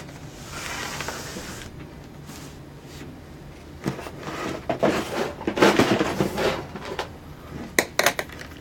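Handling and rummaging noises: a soft rustle at first, then a few seconds of clattering and knocking as things are moved about, and a few sharp clicks near the end.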